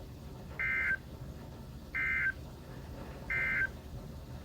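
Three short bursts of SAME digital data tones from NOAA Weather Radio, each about a third of a second long and a little over a second apart: the end-of-message code that closes a severe thunderstorm warning.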